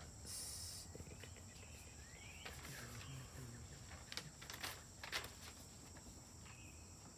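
Faint outdoor ambience: a steady high-pitched drone of insects, crickets, with a brief brighter hiss just under a second in and a few faint clicks about halfway through.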